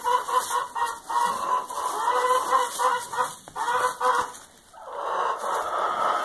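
Farm animals calling in a run of short, repeated calls, one after another, with a brief lull about four and a half seconds in.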